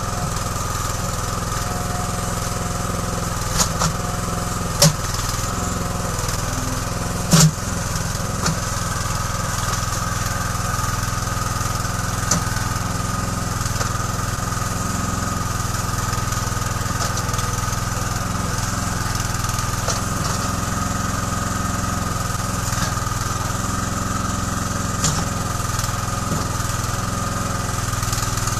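Small engine running steadily as it powers a home-built backhoe digging soil, with a few sharp knocks, the loudest about seven seconds in.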